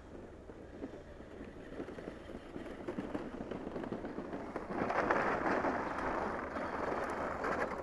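Battery-powered Power Wheels ride-on toy car rolling down a grass slope and onto an asphalt driveway, its hard plastic wheels giving a crackling rattle. The rattle grows louder about five seconds in, once the car is on the pavement, and cuts off suddenly at the end.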